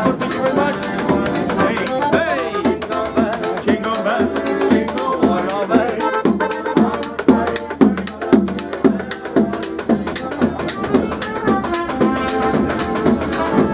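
Piano accordion playing a lively tune over a steady, regular beat.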